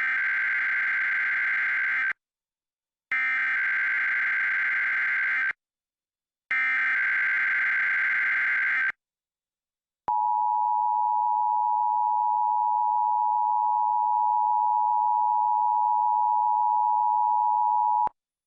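Emergency Alert System Required Monthly Test: three identical bursts of the SAME digital header, a screeching data tone each about two and a half seconds long with about a second of silence between. After a short pause comes the EAS two-tone attention signal (853 and 960 Hz together), held steady for about eight seconds and cutting off sharply.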